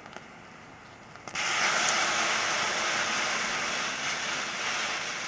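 Homemade thermite of iron oxide and aluminum powder igniting in a tin can: a sudden loud hiss starts about a second in and runs steadily for about four seconds, easing off near the end.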